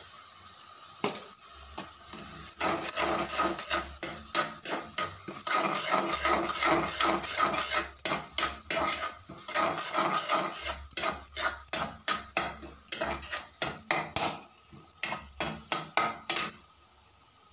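Long steel spatula scraping and knocking against a kadai in quick repeated strokes, stirring green turkey berries sautéing with sambar powder. The stirring starts a couple of seconds in and stops shortly before the end.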